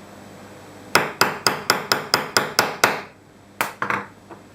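Hammer tapping pins into tight friction-fit holes in a freshly drilled part: a quick run of about nine sharp strikes, roughly four to five a second, then two more strikes a moment later.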